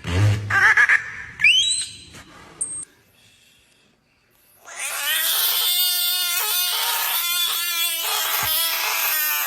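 A series of animal calls: short squeals and a rising squeak in the first few seconds, then, after a brief pause, a long, loud, high wailing call held for nearly five seconds with a few short breaks.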